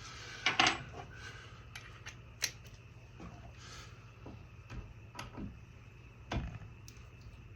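Scattered light clicks and knocks of tools and parts being handled, the strongest about half a second in, over a steady low hum.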